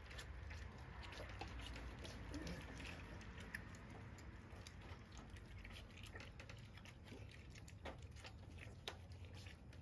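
Blue Dutch Shepherd puppies lapping and slurping milk from a foil pan: faint, irregular small wet clicks and patters.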